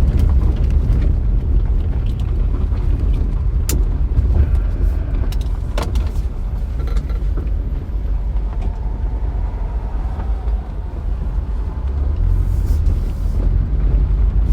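Car on the move: a steady low rumble of road and engine noise, with a couple of sharp clicks.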